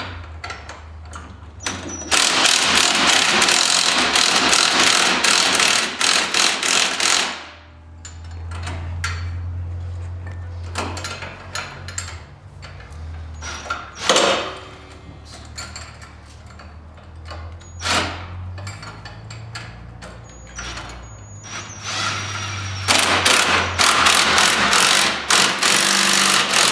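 Cordless impact driver hammering the U-bolt nuts of a golf cart's rear leaf spring in two long bursts, one starting about two seconds in and one near the end, with scattered clicks and clanks of a socket ratchet between them. The nuts are being run down a little at a time to pull the spring over into line with its bolt.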